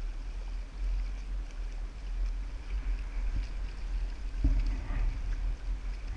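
Water rushing and splashing along the hull of a Hobie Mirage Outback kayak sailing at speed, with wind buffeting the microphone as a steady uneven rumble. A louder low buffet comes about four and a half seconds in.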